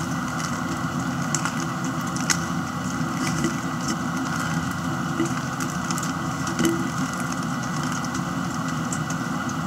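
A steady machine hum, with a few faint clicks from a plastic 3x3 Rubik's cube as its layers are twisted.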